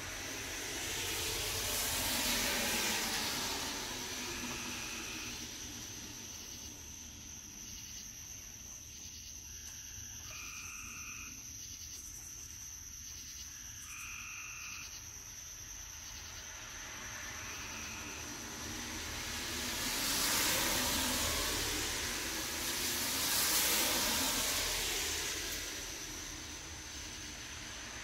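Cars pass on a road, their tyre and engine noise swelling and fading: one about two seconds in, then two more close together near the end. In the quieter stretch between, a few short calls of even pitch repeat over a steady high-pitched tone.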